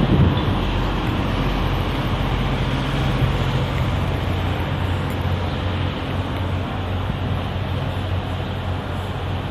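Steady low machinery hum with an even rushing noise over it.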